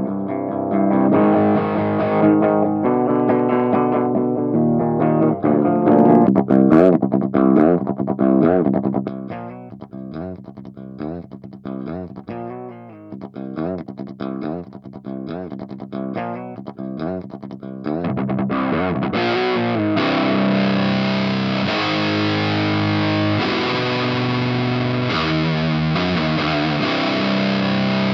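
Distorted electric guitar played through the Audio Assault Bulldozer amp-simulator plugin, a high-gain metal tone. Held notes and chords at first, then a sparser passage of short choppy notes, and from about two-thirds of the way in a fuller, steadier and louder section.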